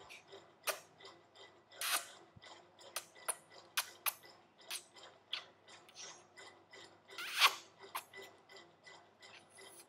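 Kissing sounds: an irregular string of short lip smacks against a plastic doll's face, with two longer smacks about two seconds in and near the end, the later one loudest.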